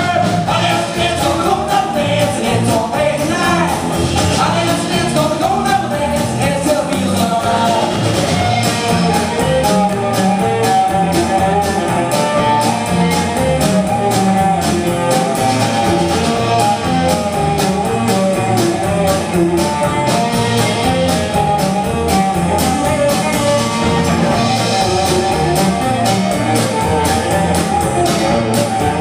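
Live rock music from a band of cello, drum kit and electric guitar, with singing, played loud and steady with a driving beat.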